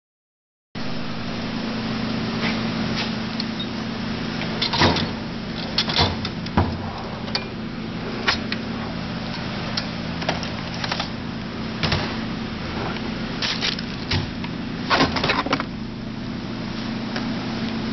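Hand tools and a tool case being handled: scattered sharp clicks and clinks, some in quick clusters, over a steady low hum.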